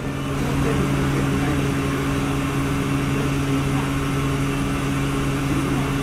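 Steady low drone of a car ferry under way, two even hum tones over a constant hiss.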